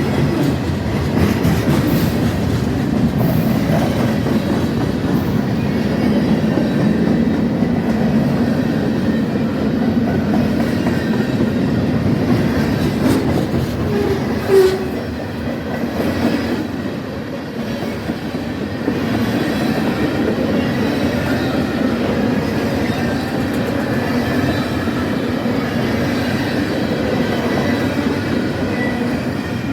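Long freight train's cars rolling past, steel wheels clattering steadily over the rail joints and crossing diamonds, with one short squeak about halfway through.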